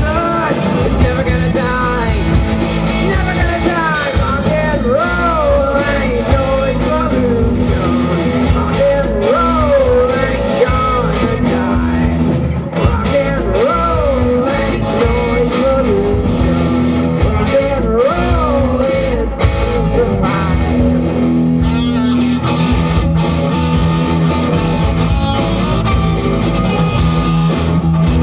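Live rock band playing: a lead singer over electric guitars, bass guitar and drums. The singing drops out about two-thirds of the way through, leaving the band playing on.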